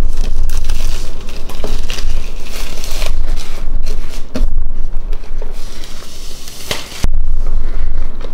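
Loud crinkling and crackling of plastic packaging being handled and torn close to the microphone, with many sharp clicks and a low rumble of handling.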